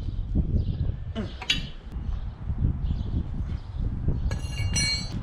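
Steel suspension parts and tools clinking and ringing against each other as a front spindle and hub are handled: a brief clink about a second and a half in and a longer run of clinks near the end. A low, uneven rumble runs underneath.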